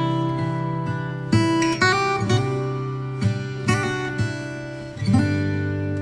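Background music: acoustic guitar, with a new chord plucked or strummed every second or so and ringing on between them.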